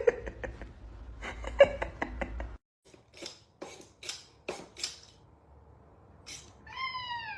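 A few light clinks and knocks, then a house cat's single meow falling in pitch near the end.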